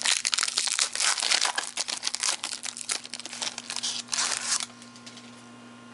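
Foil wrapper of a 2012 Panini Certified football card pack crinkling and tearing as it is ripped open by hand. The crinkling stops about four and a half seconds in.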